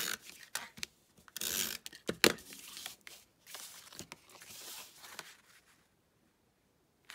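Tape-runner adhesive (a Stampin' Up! SNAIL dispenser) drawn across cardstock in several short, raspy strokes, along with cardstock being handled and pressed down. Quiet near the end.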